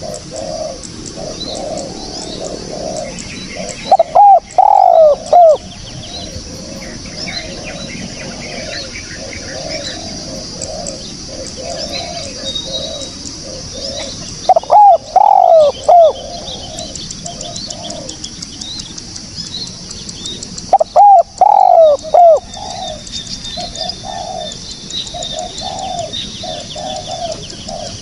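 Spotted dove cooing: three loud coo phrases, each about a second and a half long and about ten seconds apart, over a steady background of softer repeated calls and small high chirps from other birds.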